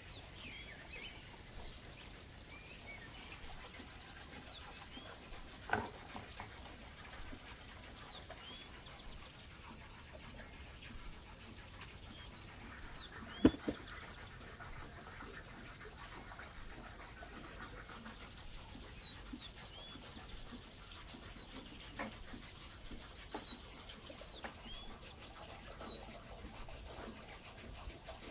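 Small birds chirping now and then, short high chirps every second or two over a quiet outdoor background. A few sharp knocks stand out, the loudest a little before the middle.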